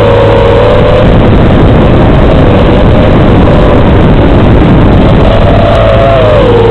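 FPV quadcopter's motor whine, picked up by the camera microphone and heard through the analog video link's audio channel under heavy hiss. The whine wavers in pitch with the throttle, sinks under a rush of static through the middle as the analog signal breaks up, and comes back clearly near the end.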